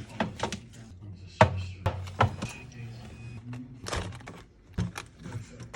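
Items being handled and set down while a fridge is organised: a run of sharp knocks, clacks and thunks at irregular intervals, several close together at times.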